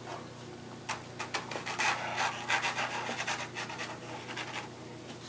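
Drawing on paper: a run of quick, uneven scratchy strokes as the tool is rubbed back and forth, busiest in the middle and thinning out near the end, over a faint steady hum.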